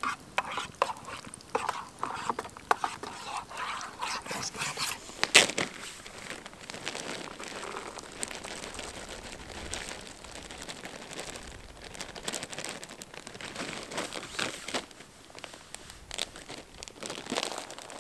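Crinkling and rustling of a food packet as it is handled and emptied into a dog's bowl, among scattered clicks and taps, with one sharp knock about five seconds in.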